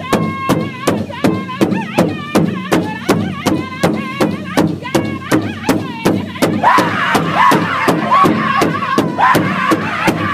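Powwow drum group singing around one large drum, the men striking it together in a steady beat of about three strokes a second. About six and a half seconds in, more voices join and the singing gets louder and denser over the beat.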